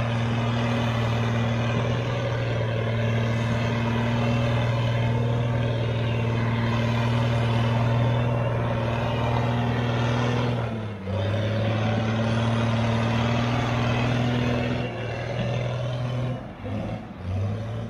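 Diesel engine of an old 11-yard self-propelled scraper running under load as it drives by: a steady low drone that dips briefly about eleven seconds in and falls away near the end.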